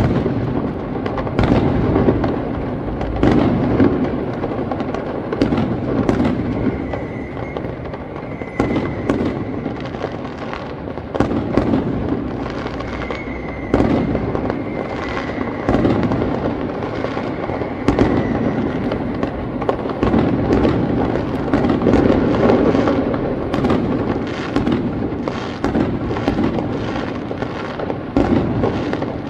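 Aerial fireworks display going off in a dense, continuous barrage: many sharp bangs, often several a second, over a steady rumble that swells and eases.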